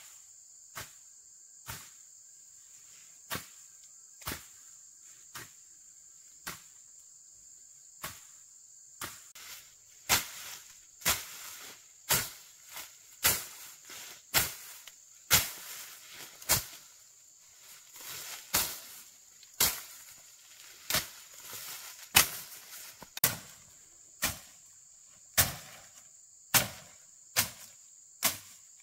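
Repeated sharp tool strikes, about one a second, growing louder and coming closer together from about ten seconds in, over a steady high-pitched drone of insects.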